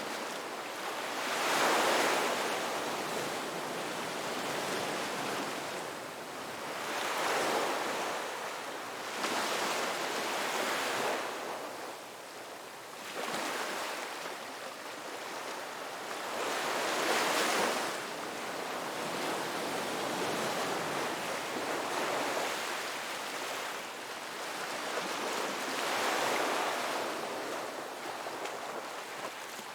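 Ocean waves breaking on a beach, one after another, with the surf swelling and ebbing every few seconds.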